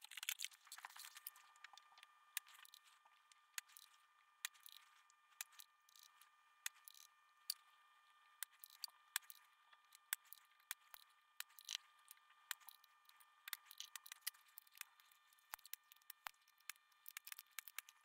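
Faint, irregular small clicks and taps of hand tools on a circuit board during desoldering work, scattered through a quiet stretch.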